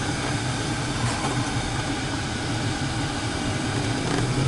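Engine and road noise inside the cabin of a BMW 550i xDrive driving under power: its 4.4-litre twin-turbo V8 runs with a steady hum that grows louder near the end as the car picks up speed.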